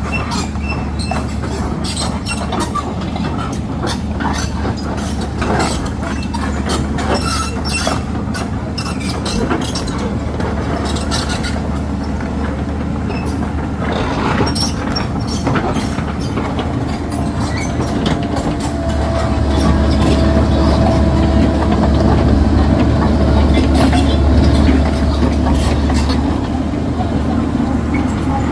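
Heavy diesel excavator engines running under load during a truck recovery, with repeated sharp metal clanks and scraping. About two-thirds of the way in the engines grow louder and a steady high whine joins them.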